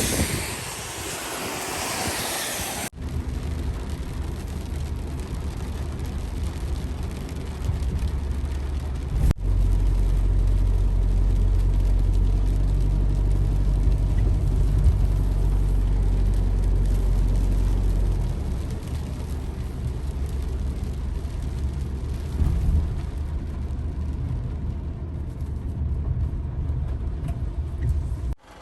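Car engine running with a steady low hum, heard from the car. The sound cuts abruptly about 3 and 9 seconds in, and the hum is louder and deeper for several seconds after the second cut.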